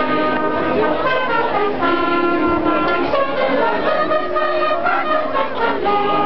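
Choir singing a Christmas carol, holding long notes in several parts at once.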